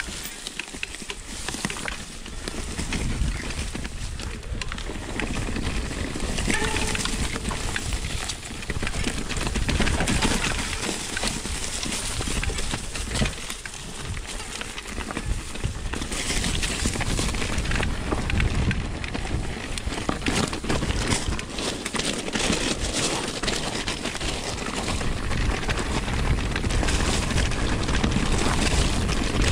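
Orbea Rise mountain bike rolling along a trail, its tyres crunching over dirt and stones and the bike rattling over bumps, with a constant rushing of wind on the microphone.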